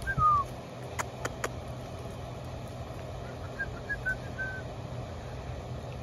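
Outdoor background with a steady low hum throughout. A few low thumps come right at the start, along with short high chirps. About a second in there are three sharp clicks, and another brief run of chirps follows around four seconds in.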